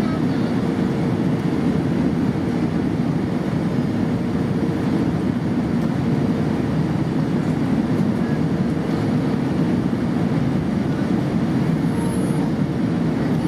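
Airbus A320 airliner heard from inside the cabin: the steady, unbroken noise of its engines and rushing air, with a faint steady hum running through it.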